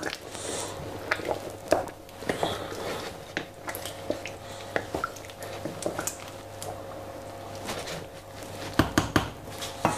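A wooden spoon stirring a chunky chicken and potato curry in a stainless steel pot: wet squelching and sloshing, with scattered knocks of the spoon against the pot, over a steady low hum.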